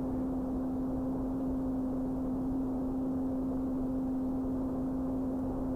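Electric motor and propeller of a Carbon Cub S2 RC plane running at steady throttle, a single even hum, over a rushing wash of wind noise.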